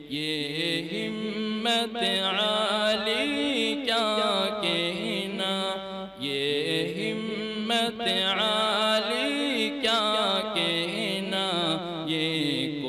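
A man's solo voice reciting a naat, an Urdu devotional poem in praise of the Prophet, sung in long melodic lines through a microphone, with short breaths between phrases.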